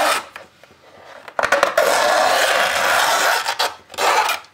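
The cone of a 15-inch bass speaker being ripped away from its frame by hand: a rasping tear of about two seconds starting a second and a half in, then a short one near the end.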